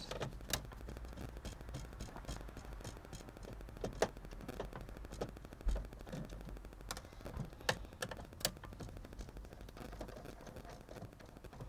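Scattered sharp clicks and light taps of small parts and tools being handled on an opened kids' tablet, over a low steady hum.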